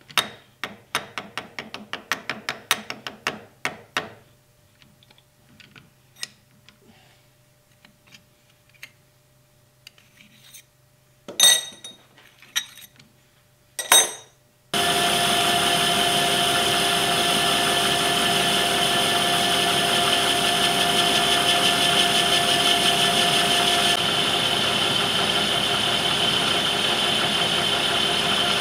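A quick run of small metallic clicks and taps from hand work at a metal lathe's four-jaw chuck, then two louder knocks. About halfway through, the lathe starts and runs steadily with a constant whine as the chuck spins the ductile iron blank.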